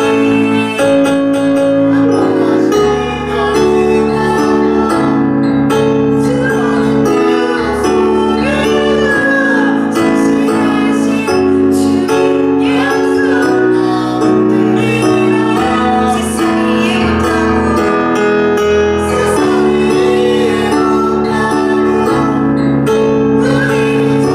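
Worship song playing: sustained instrumental chords over a changing bass line, with a woman singing the melody.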